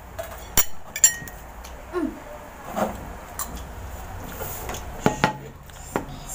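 Scattered clinks of cutlery and dishes on a table during a meal, a handful of sharp clicks with the loudest about a second in, and a brief low murmur of a voice about two seconds in.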